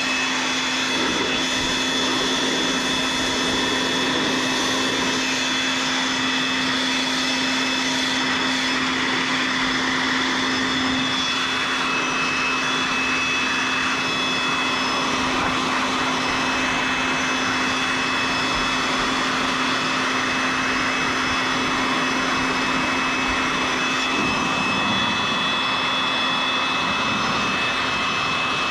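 Steady machine noise with no break: a constant low hum under an even rushing hiss, with a few faint high steady whines on top.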